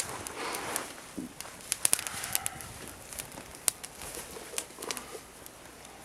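Wood fire crackling: sharp, irregular pops and snaps, with a quick cluster about two seconds in.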